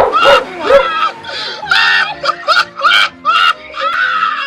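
A run of short, very high-pitched shrieking cries, about two a second, over background music with steady held tones.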